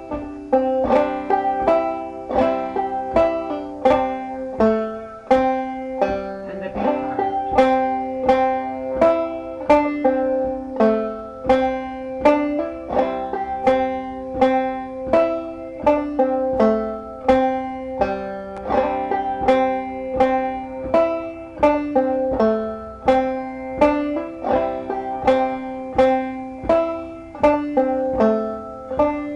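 Five-string banjo played solo, clawhammer style in double C tuning: a fiddle tune's melody picked slowly and evenly, one plucked note after another, each ringing briefly.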